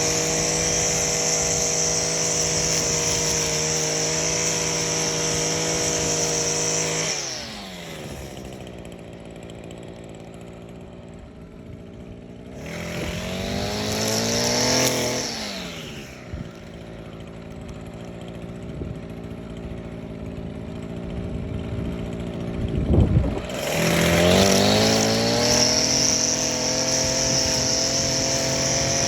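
Echo SRM-225 string trimmer's two-stroke engine running at full throttle, dropping to idle after about seven seconds, revving up once briefly and settling back to idle. A thump is heard, and then the engine is opened back up to full throttle and held there.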